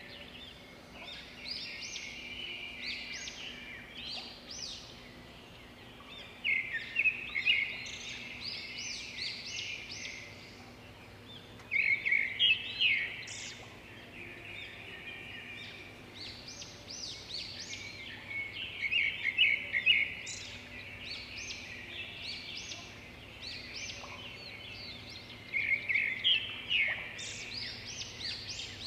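Birds chirping and singing in a steady background chorus, with louder runs of rapid chirps about every six to seven seconds.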